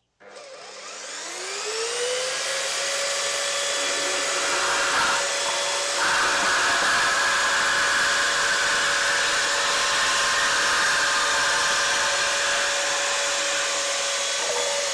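A Parkside portable bandsaw spinning up with a rising motor whine, then cutting through a metal downpipe with a harsh, steady screech from the blade. The cut dips briefly about five seconds in, and the motor begins to wind down at the very end.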